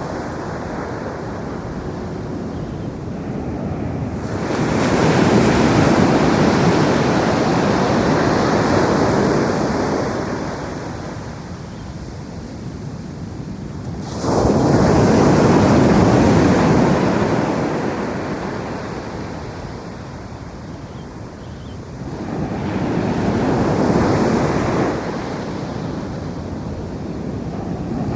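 Ocean waves breaking on a beach: the surf swells three times, about four, fourteen and twenty-two seconds in, the middle one coming in abruptly, and each ebbs to a lower hiss between.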